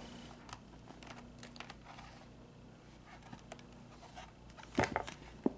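Quiet handling noises, light rustles and ticks, with two sharp clicks near the end.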